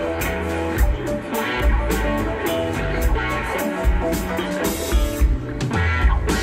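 Live psychedelic rock band playing an instrumental groove: electric guitar, bass, keyboards and drum kit over a steady beat.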